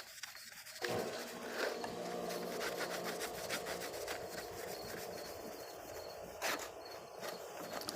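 Sandpaper rubbing over the thin sheet-metal drawer bottom: a steady, quiet scratchy sanding sound that starts about a second in, with a brief knock near the end.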